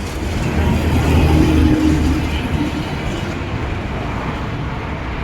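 Strong wind buffeting the microphone: a heavy low rumble with a rushing noise above it, swelling about a second in and then easing.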